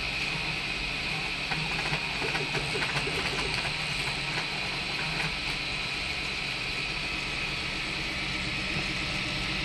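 DIY 3D printer printing fast moves at 100 mm/s and 5000 mm/s² acceleration with Klipper input shaping: a steady mechanical whir with short, pitched stepper-motor tones and ticks that shift with each move, most busily about two to three and a half seconds in.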